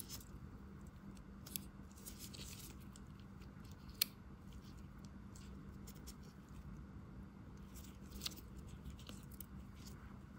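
Faint handling of small Victorinox Swiss Army pocketknives: light metal clicks and rustles as the knives are moved, with a sharp click about four seconds in and another near eight seconds. A steady low hum sits underneath.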